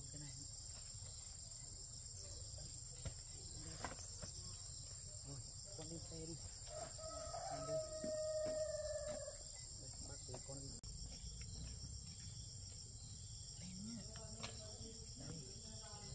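A rooster crows once, a single long call of about two and a half seconds starting around seven seconds in. Steady high insect chirring runs underneath throughout.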